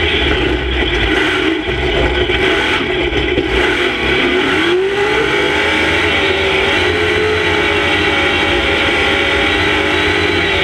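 Monster truck engine revving hard, heard from inside the cab. The pitch wavers with the throttle, drops briefly about four seconds in and climbs back up, then holds high and steady.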